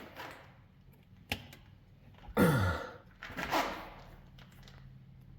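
Seal puller worked against an old, hardened axle seal: sharp metal clicks, then two scraping pulls, with a short falling grunt of effort at the first pull.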